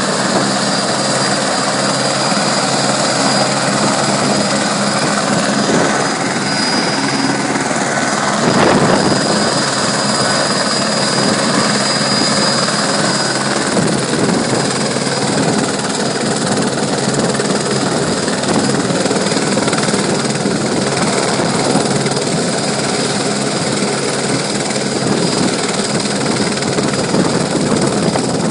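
Light turbine helicopter running on the ground with its main rotor turning: a steady high turbine whine over the engine and rotor noise, with a brief rush of louder noise about eight seconds in.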